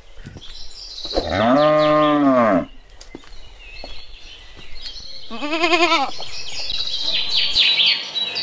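Recorded farm-animal calls: a long cow moo that rises and falls, then a short wavering bleat, followed by a run of high bird chirps near the end.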